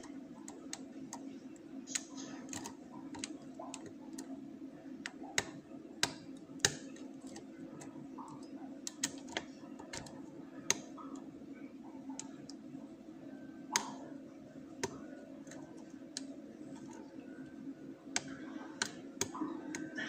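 Lock pick and tension tool working inside a brass challenge-lock cylinder: irregular small metallic clicks and ticks as the pick probes under the warding and sets pins, a few of them sharper than the rest, over a steady low hum.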